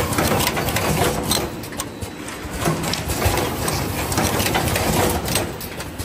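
YH009A-2 fully automatic plug crimping machine running: a busy, continuous clatter of clicks and knocks from its air-driven stations and conveyor.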